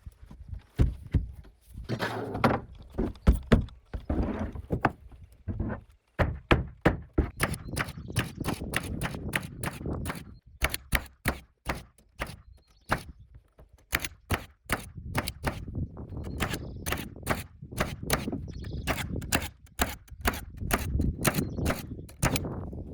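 Framing nailer firing plastic-collated nails into plywood subfloor sheathing, a long run of sharp shots about two to three a second, with looser knocks and thumps at the start.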